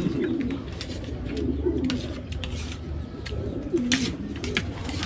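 Doves cooing, low and repeated, with light clinks of spoons and forks against plates.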